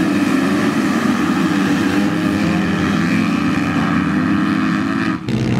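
A full gate of motocross dirt bikes accelerating hard together off the start, many engines at high revs blending into one loud, dense drone. The sound drops out briefly just before the end.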